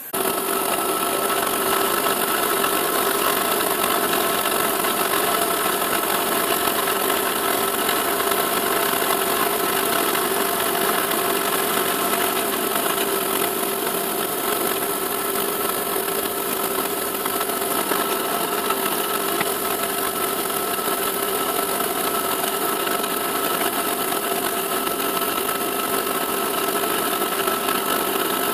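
CNC milling machine running a pocketing cut with a 5 mm slot drill: a steady hiss from its stepper motors, with several steady tones from the spindle and drive, starting abruptly and holding level.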